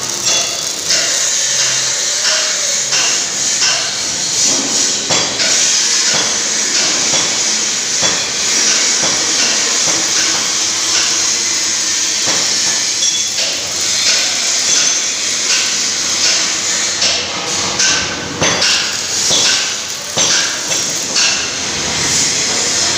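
Irregular hammer blows ringing out in a workshop, over a steady high hiss.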